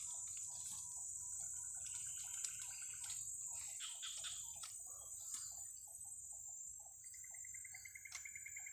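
Faint insect drone, high and steady, with a run of short chirps repeating a few times a second. Birds call twice in rapid trills, once early in the second second and again near the end.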